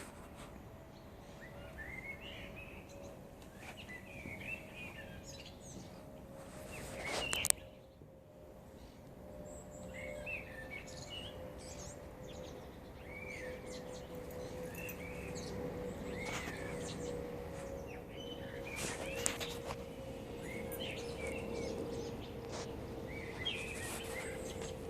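Songbirds chirping and singing in short phrases over the steady drone of a passing jet airliner, which slowly grows louder and sinks slightly in pitch. About seven seconds in, a short swell of noise ends in a sharp click.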